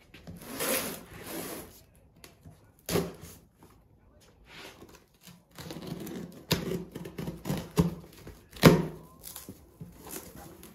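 A knife slitting packing tape on a cardboard box, with scratchy rasps and quick clicks and knocks as the blade drags along the seam and the cardboard flaps are worked loose. The loudest sharp knock comes about three-quarters of the way through.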